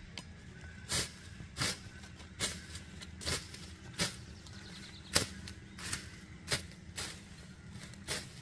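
A machete hacking at weeds close to the ground: about ten sharp chopping strokes, spaced a little under a second apart.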